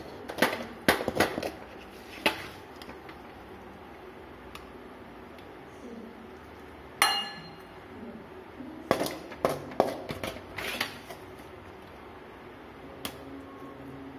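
Steel slotted spatula knocking against a metal wok and then a glass serving bowl as stir-fried okra is spooned out: a few quick knocks at the start, one sharp ringing clink about seven seconds in, and a cluster of taps around nine to eleven seconds.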